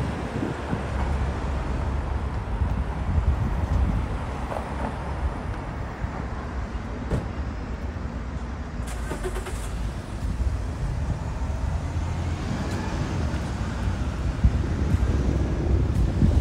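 Street traffic: a motor vehicle running nearby, heard as a steady low rumble that swells slightly near the end.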